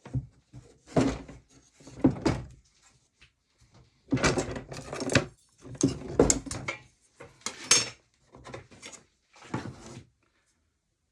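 Pieces of wood being handled and set down on a workbench: irregular knocks, clatter and short scrapes, with a few louder hits about a second and two seconds in and several more after four seconds.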